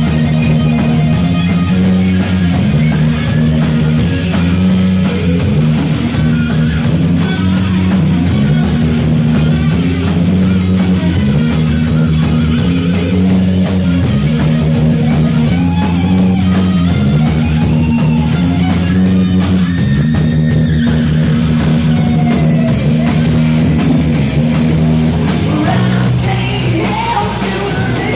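Loud live rock music, heavy and distorted, with electric guitar, bass and drum kit playing a steady repeating riff, and a voice singing over it in places.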